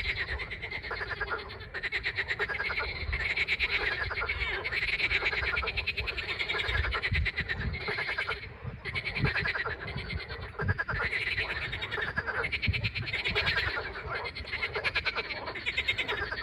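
A chorus of frogs calling: many rapidly pulsed croaks overlapping, each bout recurring about every second, with a few low thumps in the middle.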